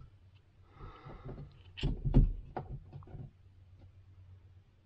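A quick cluster of four or five short knocks and clicks about two seconds in: hands handling the plastic terminal cover of an inline extractor fan.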